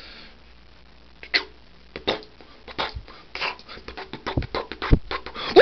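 A run of short, sharp clicks and knocks at uneven spacing, coming faster toward the end. Right at the end a man's voice breaks in with a loud sung note.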